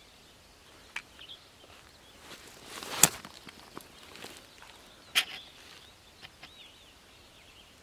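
Clothing rustling close to the microphone as a person shifts, building to a sharp knock about three seconds in and another about two seconds later. Faint bird chirps are heard.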